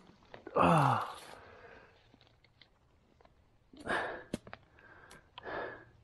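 A man's long, sighing "oh" falling in pitch, about a second in, then a few short rustles and clicks in dry leaves and fern fronds as a gloved hand takes hold of a freshly shot ruffed grouse.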